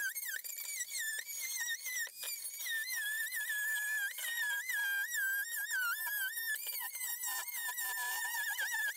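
Handheld cordless power tool cutting fiberglass, its motor giving a high whine that dips and rises as the load on the blade changes.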